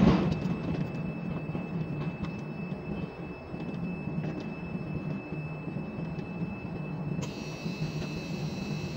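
Ship-to-shore container crane machinery running with a steady drone and a constant high whine, heard from the crane operator's cab. A loud clunk comes at the very start, and a high hiss joins about seven seconds in.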